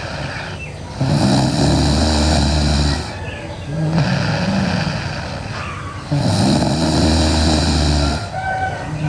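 A sleeping person snoring loudly: two long, rasping snores of about two seconds each, some five seconds apart, with softer pitched breaths between them.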